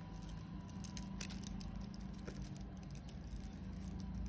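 Light, irregular clicks and chinks of tangled costume jewellery, metal chains and beads, being picked apart by hand.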